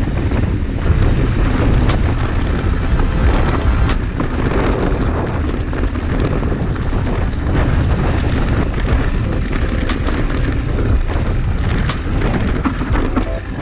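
Loud rumbling wind buffeting on the microphone while riding an enduro motorcycle, with the engine running underneath.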